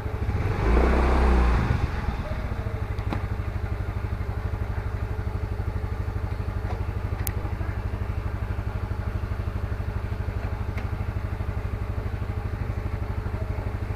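Motorcycle engine idling steadily with an even, fast pulse, with a brief louder surge about a second in.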